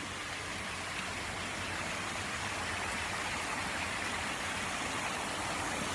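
Rushing river water, a steady, even hiss of a strong current running over rocks; the river is running high and fast after flooding.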